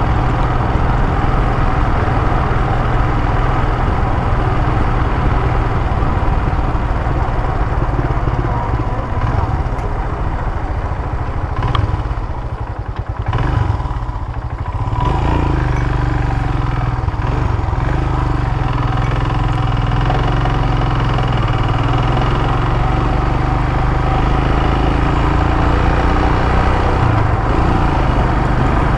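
Royal Enfield motorcycle engine running steadily while riding, with wind rushing over the helmet-mounted microphone. The engine eases off about twelve seconds in and picks up again a few seconds later.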